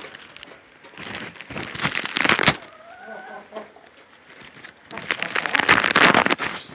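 Hens clucking briefly with a few soft pitched notes about midway, between two longer stretches of crackly rustling.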